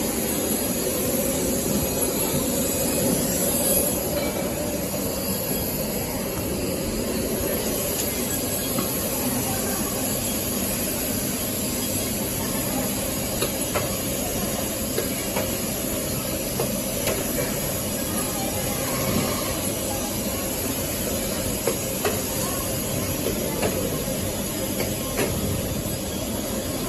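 Steady hum and hiss of running factory machinery on an automated PCB separating line, with occasional sharp clicks from the robotic handling mechanism.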